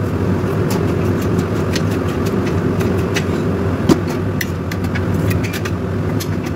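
Steady low mechanical hum from a running kitchen appliance, with light clinks of stainless steel cookware over it. A large stainless stockpot is set down on the gas hob with a knock about four seconds in, and then a steel ladle clinks in the pot.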